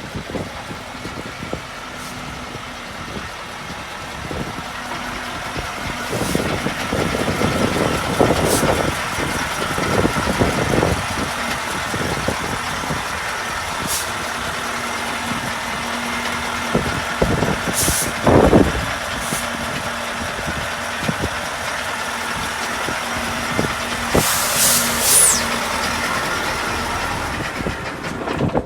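Heavy truck diesel engine running steadily, with a few short high hisses along the way.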